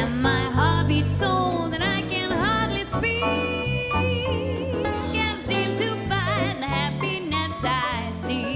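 Swing-style jazz music: a lead melody that slides between notes and holds some of them with vibrato, over bass and rhythm accompaniment.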